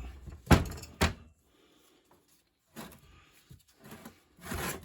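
Metal vise parts handled and set down on a workbench: three sharp knocks in the first second, then quieter knocking and a short scraping rush near the end.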